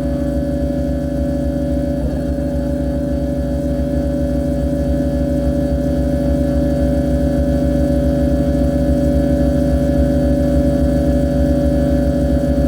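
Harsh-noise drone made by electronic mangling: a loud, steady, dense hum of held tones over a rapid low pulsing, growing slightly louder.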